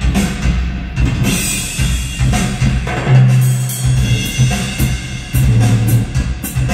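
Drum-heavy demo music played loud through a 5.1 home-theatre speaker set, with a strong subwoofer bass line. The bass holds a deep note for about a second midway, under repeated drum hits.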